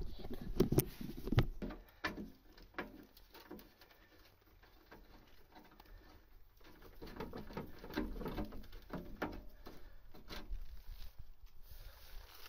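Irregular clicks, taps and knocks of hands working on a car's plastic parts. The sharpest snaps come in the first couple of seconds as the plastic engine cover is pressed back on. Softer scattered taps and rustling follow from under the car.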